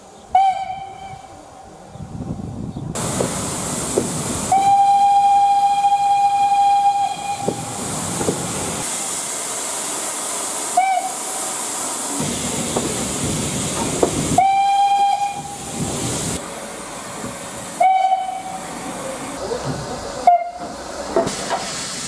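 Steam locomotive whistle sounding about six times at one steady pitch, mostly short toots with one long blast of about two and a half seconds, over a steady hiss of steam and the rumble of the train running.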